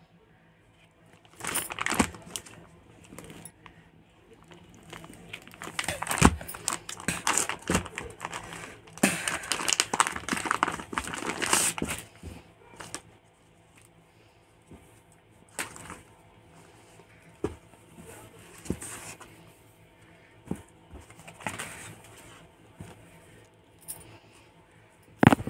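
Clear plastic garment polybag crinkling and rustling as a t-shirt is handled and pulled out. The rustling is dense for most of the first half, then turns into scattered softer rustles and light taps.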